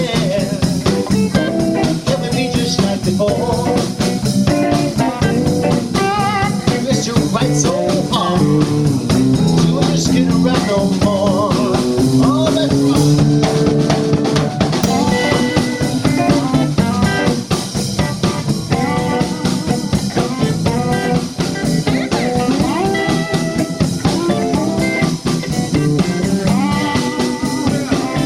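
Live blues band playing: electric guitars over bass guitar and a drum kit keeping a steady beat.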